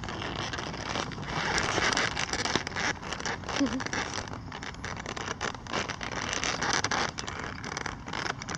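Wind buffeting a camera's microphone, a rough, crackling rush that swells and drops unevenly.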